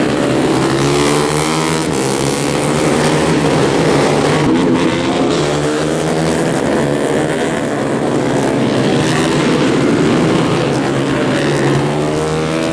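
Several 150cc underbone race motorcycles' single-cylinder four-stroke engines running hard on the circuit at once, their pitches rising and falling as they accelerate and shift gears.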